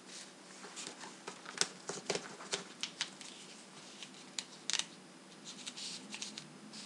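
Rolled paper tubes rustling and crackling in the hands as they are folded and slid into one another, a string of short, crisp crackles.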